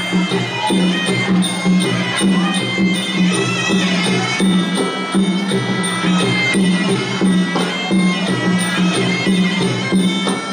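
Traditional Khmer boxing ring music: a reedy sralai oboe melody over a steady beat of skor drums, the live music that accompanies a Kun Khmer bout.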